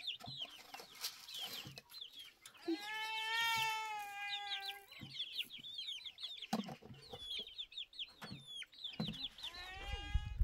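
A flock of young chickens and hens clucking and peeping, with many quick high chirps, a long drawn-out call about three seconds in, and another near the end.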